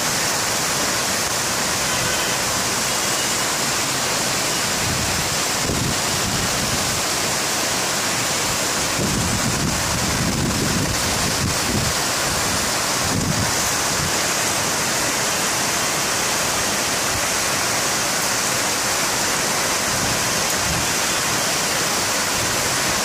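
Heavy rain pouring down in a steady, unbroken hiss, with some low rumbling about halfway through.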